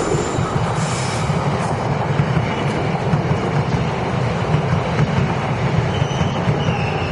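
Electric commuter train running into the station on the near track: a steady rumble of wheels on rail, with a faint high wheel squeal near the end.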